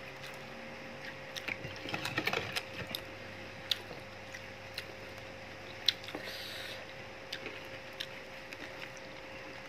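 Eating with the fingers: scattered light clicks and smacks of chewing and of fingers picking rice and food from a glass dish, with a denser run of clicks about two seconds in. A faint steady hum lies underneath.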